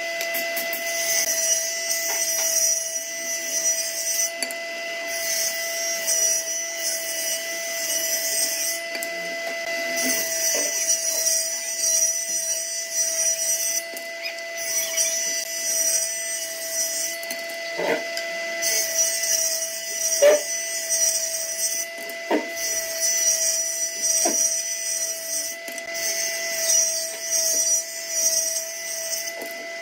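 Table saw blade on a combination woodworking machine running with a steady whine, ripping long hardwood strips in repeated passes. Each cut adds a higher hiss that comes and goes every few seconds. A few sharp knocks of wood are heard in the second half.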